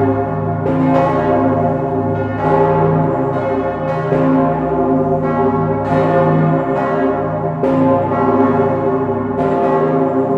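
Swinging bronze church bells of St. Stephen's Cathedral's main peal, the south-tower bells cast by Pfundner in 1960, ringing together, heard close up inside the bell chamber. Many bells of different pitches strike over one another in a dense, loud, unbroken peal, a fresh stroke coming every half second to a second while the earlier tones keep humming.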